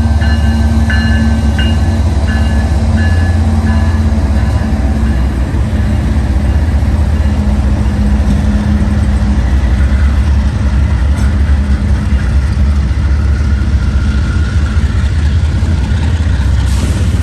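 Diesel freight locomotives, a GE ES44AH leading a GE Dash 8, passing close by. The air horn sounds a string of short blasts in the first four seconds. After that there is a heavy steady engine rumble with the rolling noise of wheels on rail.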